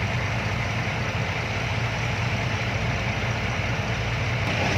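Diesel engine of a six-wheel dump truck running steadily with an even low hum, no change in pitch.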